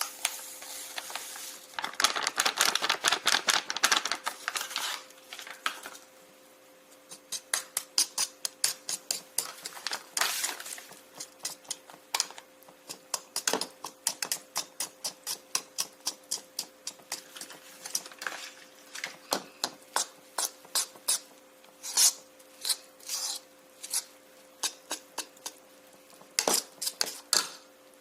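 A long series of sharp clicks and taps. A dense clatter comes about two seconds in, then a regular run of about three to four clicks a second, then scattered single clicks, over a faint steady electrical hum.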